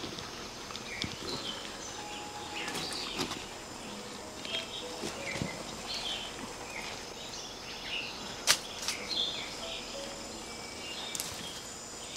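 Outdoor ambience of chirping birds and insects, with leaves rustling and small snaps and clicks from someone working in the branches of a jackfruit tree. A single sharp crack stands out about eight and a half seconds in. A dull thud comes right at the end as a jackfruit hits the ground.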